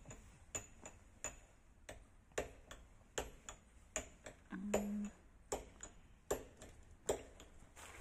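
Sharp clicking taps on hard, rocky ground in a walking rhythm, about two a second, some with a faint high ring. A short hummed voice sound comes about halfway through.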